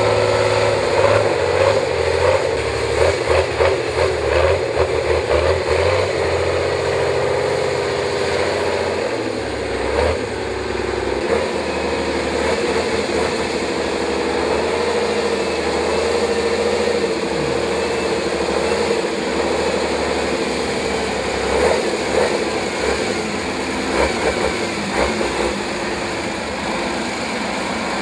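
Praga V3S six-wheel-drive trial truck's engine working under load as it crawls over steep sand, its note rising and falling with the throttle. Irregular thumps sound over it in the first few seconds and again past twenty seconds.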